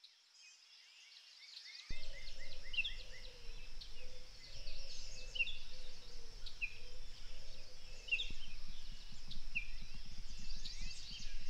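Morning dawn chorus of several songbirds chirping and trilling, fading in from silence. A low rumble joins suddenly about two seconds in.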